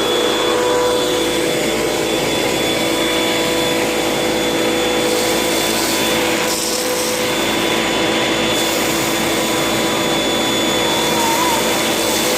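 Hoover vacuum cleaner running steadily, its motor whine holding an even pitch.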